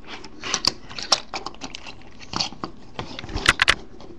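Irregular plastic clicks and rattles of a Transformers Animated Ratchet action figure's parts being flipped and folded by hand during transformation, with a couple of louder clicks about three and a half seconds in.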